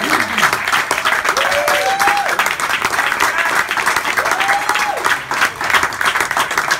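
Audience applauding steadily, a dense patter of many hands clapping, with a couple of short cheers from voices in the crowd about one and a half and four and a half seconds in.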